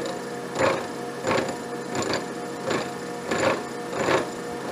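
Horizontal milling machine cutting a shoulder on a broach bushing with an arbor-mounted disc cutter: a steady machine whine under a heavy, regular pulse about every two-thirds of a second. This is serious vibration in the cut, which the machinist puts down to vise bolts that were not tight enough.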